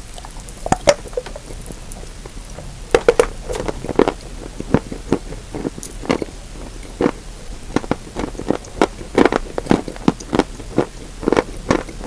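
A person biting into a piece of chalk and then chewing it with the mouth closed: sharp, irregular dry crunches, roughly one or two a second.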